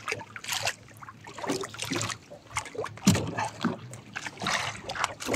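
Sea water splashing and dripping as a hooked fish is lifted out of the water beside the boat, with irregular knocks and clatter from the catch and line being handled.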